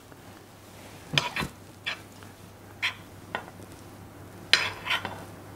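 Metal spoon clinking and scraping against small fluted tartlet tins as apple compote filling is packed down into them: a series of short, sharp clinks, the loudest about a second in and near the end.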